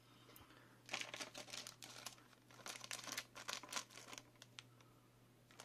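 Clear plastic parts bag crinkling as it is handled and opened to take a component out, in a run of crackles from about a second in until about four seconds in, with a few scattered ticks after.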